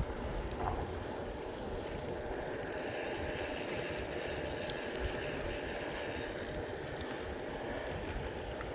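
Steady rolling hiss of a bicycle being ridden, its tyres running over the trail surface, with a stretch of added high hiss in the middle.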